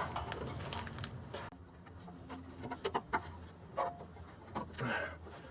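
Scattered light clicks, taps and rubbing as the fuel filter holder is refitted around the canister fuel filter, most of them in a cluster a couple of seconds in.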